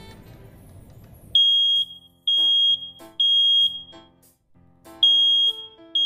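Smoke alarm sounding its three-beep alarm pattern. Loud, high-pitched beeps start about a second and a half in: three in a row, a pause, then the next three begin. Three beeps and a pause is the smoke-alarm signal, as distinct from the four-beep pattern of a carbon monoxide alarm.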